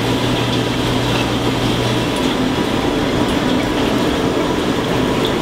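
Steady roar of a restaurant kitchen's exhaust hood fans and burners running, with a low hum underneath that stops about two seconds in.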